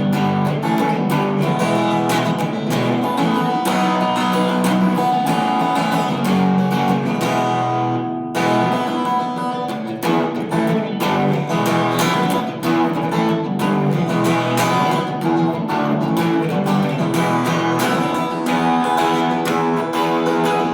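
Fender HSS Telecaster electric guitar on its humbucker pickup, played through a Vox AC30 amp: picked notes and strummed chords with sustained ringing, briefly thinning out about eight seconds in.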